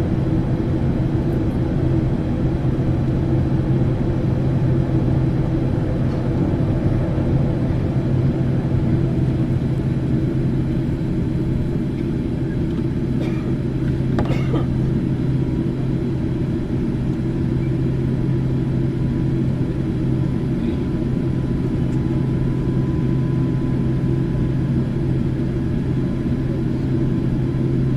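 Boeing airliner jet engines running with a steady low hum, a faint whining tone rising into the sound about two-thirds of the way in.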